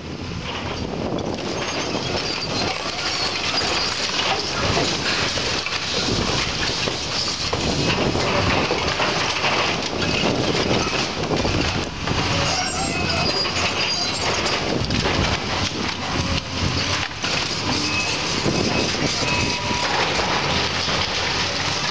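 Building demolition by a Case hydraulic excavator: continuous crunching, cracking and clattering as the building's wood framing and cladding break apart and debris falls. A thin squealing tone comes in near the end.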